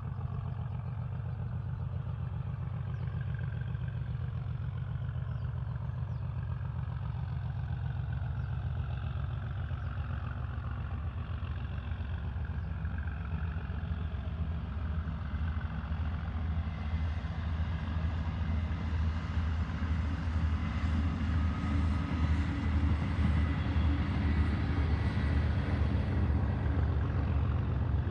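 Distant Class 37 diesel locomotive working under power, its English Electric V12 engine giving a steady low throb that grows gradually louder through the second half as the train approaches.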